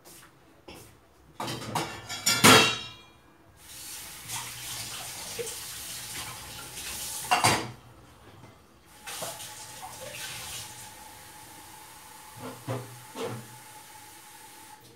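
Water running from a tap into a vessel, drawn to measure out for sugar syrup, with clatter and knocks of metal kitchen utensils. The loudest clatter comes about two and a half seconds in, and there are more knocks near the end.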